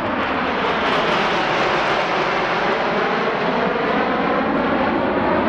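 BAE Hawk T1 jets flying past in close formation, their Rolls-Royce Turbomeca Adour turbofans giving steady jet noise with a slowly sweeping, phasing tone.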